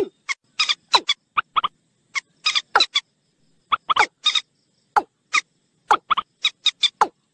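Common moorhen and watercock calls mixed together: a run of short, clipped calls, some single and some in quick pairs or triplets, with brief gaps between.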